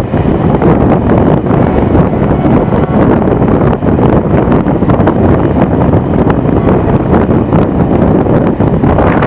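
Loud, steady wind buffeting the microphone held out of a moving train's carriage window, with the train's running noise underneath.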